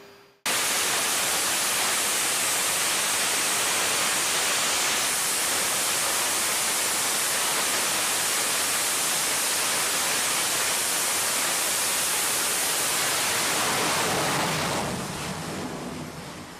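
F/A-18 fighter's jet engines at full power with afterburner lit on a carrier catapult: a steady, even hissing roar. It starts abruptly about half a second in and fades away over the last few seconds.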